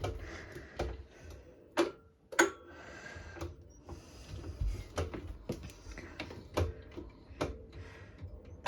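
Power wheelchair's drive mechanism during a slow, tight stop-start turn: irregular sharp clicks and ticks, about one or two a second, over a faint motor hum.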